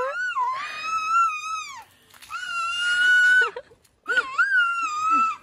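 A baby squealing excitedly: three long, high-pitched squeals, each held at a fairly steady pitch.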